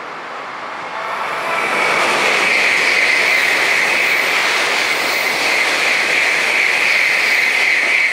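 Hankyu 1300-series electric train running past close by. Its noise builds over the first two seconds to a loud, steady rush of wheels on rail, with a high squeal riding on top.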